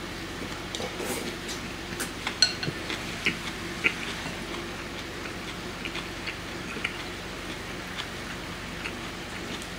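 Close-up eating sounds: a man chewing a mouthful of thick ramen noodles, with scattered small wet clicks, the sharpest few between about two and four seconds in.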